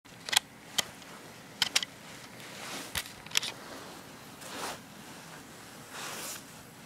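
Close-up scuffle of a kitten playing with a person's hand: about six sharp clicks and taps in the first three and a half seconds, some in quick pairs, then two soft rustling swishes.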